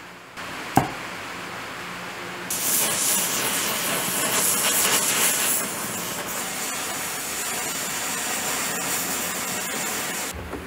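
Stick arc welder striking up and burning a welding rod, a steady crackling hiss that starts about two and a half seconds in and stops shortly before the end. A sharp knock comes about a second in.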